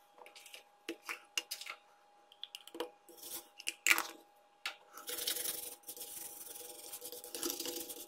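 A few small clicks and taps of tools being handled, then from about five seconds in a steady scratchy scrubbing as a brush is worked over the circuit board where the IC was desoldered.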